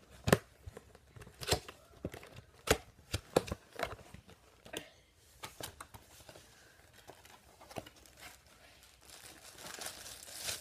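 A cardboard box being opened by hand: a string of sharp tearing snaps as tape and flaps are pulled at, the first the loudest, then crinkling bubble wrap being unwrapped near the end.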